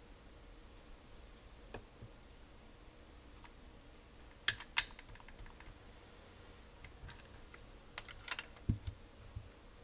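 Scattered light plastic clicks and taps from handling an air mattress pump's plastic housing and battery holder, a few at a time, with a low thump near the end. The pump's motor is not running.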